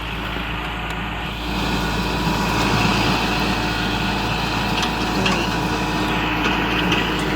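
Kubota tractor engine running steadily while pulling a crimper across standing cereal rye. It grows louder about a second and a half in and holds.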